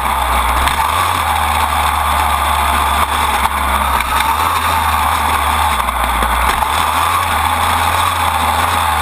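Dirt bike engine running steadily as the bike rides a dirt track, mixed with heavy wind noise on the frame-mounted microphone.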